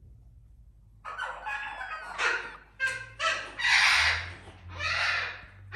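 A run of animal calls starting about a second in: a few short calls that bend in pitch, then two longer, louder calls near the middle and near the end.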